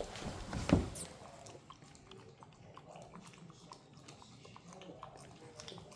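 A puppy chewing and gnawing, a run of small wet clicks, with a sharp knock in the first second.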